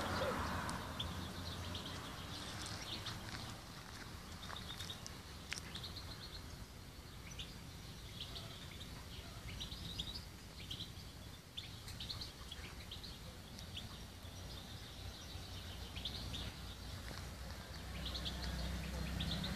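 Small birds chirping, short scattered chirps repeating throughout, over a steady low outdoor background noise.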